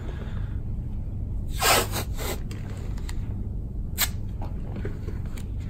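Rigid strapping tape being pulled off the roll with a short rasping rip about a second and a half in, then a single sharp tear of the tape about four seconds in, over a steady low hum.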